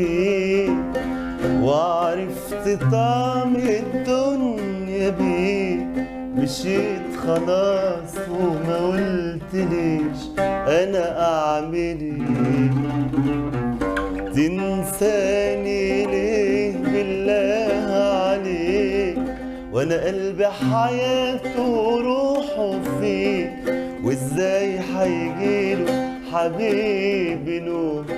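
An oud being plucked, accompanying a man singing a winding, wavering melody without a break.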